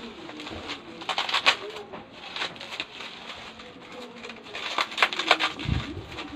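Plastic wrapping crinkling in short bursts as a packaged product is unwrapped by hand, with a soft thud near the end. Low bird cooing goes on in the background.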